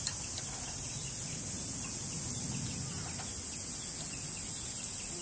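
A steady, high-pitched chorus of insects, with a light click near the start.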